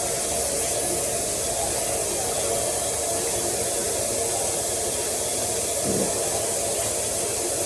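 Tap water running steadily into a kitchen sink as containers are washed, with a soft knock about six seconds in.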